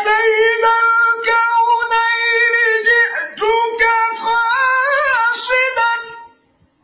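A man singing an Arabic Sufi ibtihal unaccompanied in a high, strong voice, holding long notes with wavering ornamented turns. There is a short break for breath partway through, and the phrase stops shortly before the end.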